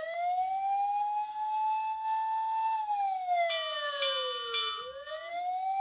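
Electronic siren sound effect from a toy fire truck: a wailing tone that rises, holds, slides down, then rises again. About three and a half seconds in, a brief run of stepped electronic tones sounds over it for about a second.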